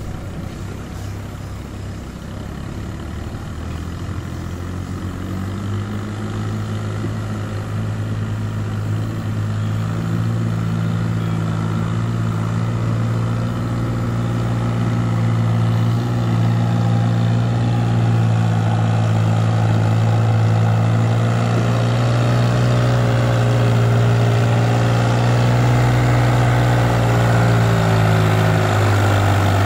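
New Holland 5500 tractor's diesel engine running steadily as it pulls a heavily loaded sugarcane trailer, growing louder as the tractor approaches and comes close.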